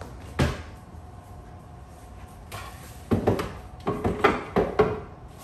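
Kitchen clatter as a wooden cutting board and items on the counter are handled: one sharp knock about half a second in, then a quick run of knocks and clacks, some with a short ring, in the second half.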